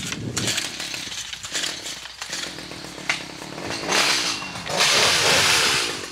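Gas-powered hedge trimmer's small two-stroke engine running, with a click about three seconds in. It revs up loudly about four seconds in, holds high revs for over a second, then drops back.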